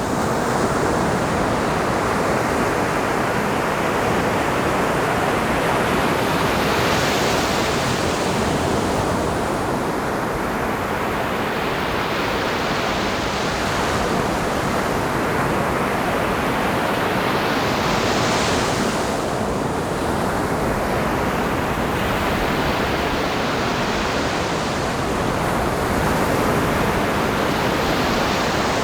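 Ocean surf: waves breaking and washing up a beach over a constant hiss of surf, with a fresh wave surging in about every five to six seconds.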